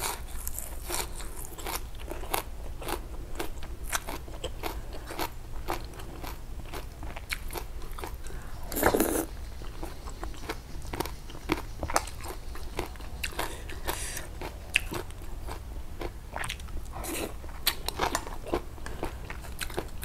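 Close-miked chewing of a mouthful of raw leafy greens with snail-meat laab: many short, crisp crunches, with one louder crunch about nine seconds in.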